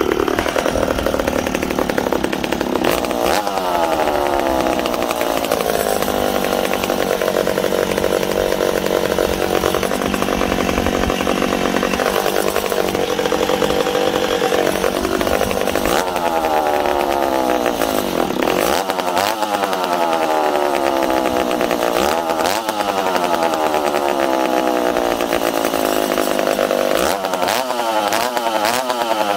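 Ported McCulloch Super Pro 70 two-stroke chainsaw running on its first start after porting and reassembly, revved again and again, its pitch falling back after each rev. It runs on only a small splash of fuel in the tank.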